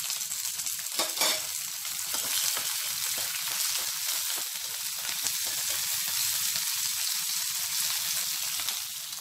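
Thinly sliced onion and curry leaves frying in hot oil in a pan of tempering with mustard seeds, urad dal, chana dal, cumin and dried red chillies: a steady sizzling crackle, with a knock about a second in.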